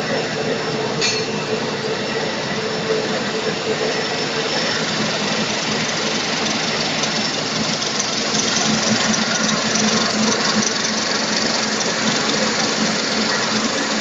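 Pet-feed microwave sterilization machine running: a steady, dense mechanical noise with a low hum, a little louder in the second half.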